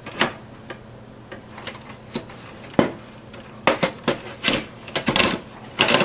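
Irregular clicks and knocks of a desktop computer power supply unit being handled and fitted back into its small form factor case, metal and plastic knocking together, several in quick succession near the end.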